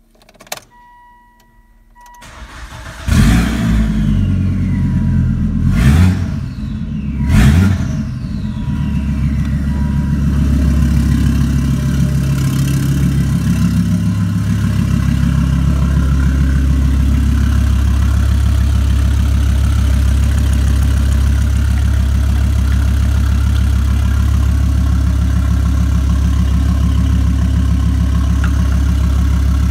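Volvo S80's 2.4-litre turbocharged five-cylinder petrol engine (B5244T3) cranked and started about three seconds in after a short electronic tone, revved twice, then settling into a steady idle.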